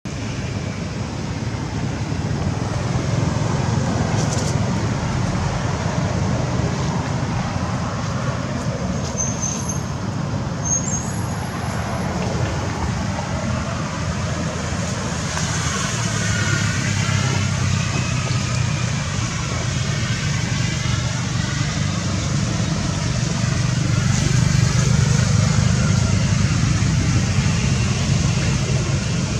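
Road traffic noise: a steady rumble of passing vehicles that swells near the end as a vehicle goes by closer.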